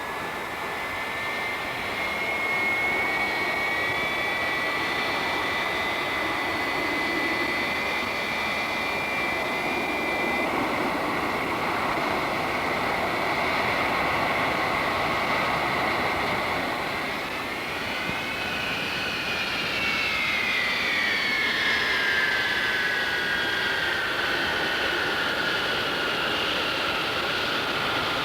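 Jet airliner engines running with a high whine over a steady rush. About two-thirds of the way through, the whine's pitch rises and then slowly falls away.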